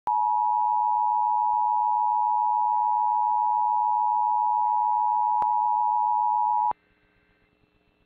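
Emergency Alert System attention signal: the two-tone alert of 853 Hz and 960 Hz sounded together, a steady loud dual tone that cuts off suddenly nearly seven seconds in. It announces an EAS flood warning.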